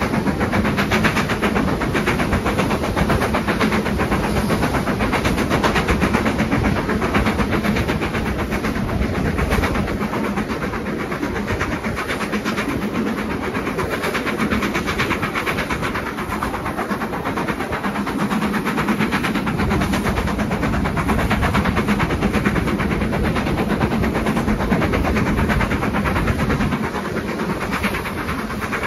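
BR Standard Class 4MT 2-6-4T steam tank locomotive 80136 working hard, its rapid exhaust beats heard from a carriage window together with the clatter of the coaches' wheels on the rails.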